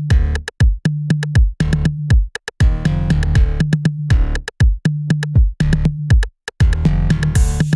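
Electronic background music with a steady drum-machine beat and synthesizer.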